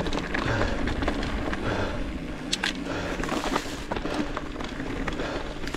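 Mountain bike rolling over a loose gravel and dirt trail: tyres crunching on the stones and the bike rattling, with scattered clicks and knocks, two sharp ones about halfway through.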